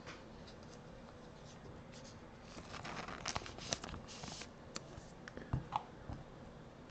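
Trading cards being handled: faint scraping and light clicks as stiff cards slide against one another, busiest in the middle, then a few soft taps near the end.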